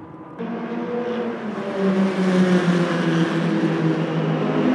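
Open-wheel formula race car engines running at high revs, growing louder as the cars approach. The sound jumps abruptly louder about half a second in.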